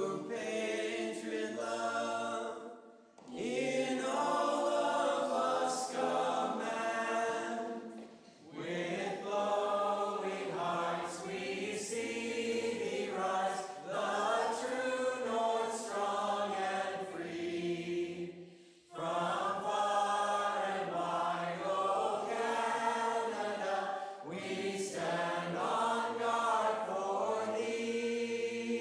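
A mixed choir of men's and women's voices singing the national anthem in harmony, phrase by phrase, with short breath pauses between the lines.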